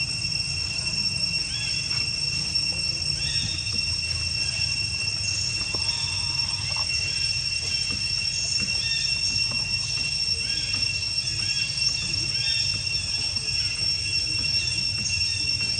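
Steady high-pitched drone of insects, unbroken throughout, over a low rumble, with many short faint chirps scattered through it.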